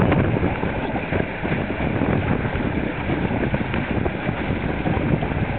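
Steady wind buffeting the microphone on a trimaran sailing in 10 to 20 knots of wind.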